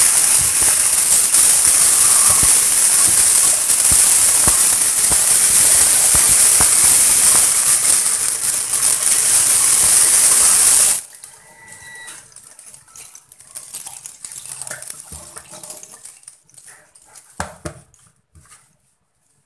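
Tap water running hard into a stainless steel sink and a plastic bowl as boiled chicken pieces are rinsed by hand. The tap shuts off suddenly about eleven seconds in, leaving quiet splashing and handling of the wet chicken, with one brief knock near the end.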